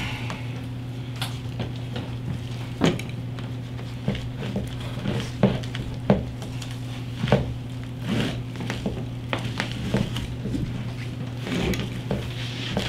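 Scattered light knocks, clicks and rubbing from hands working greased wiring and pull-strings through a motorcycle handlebar, over a steady low hum.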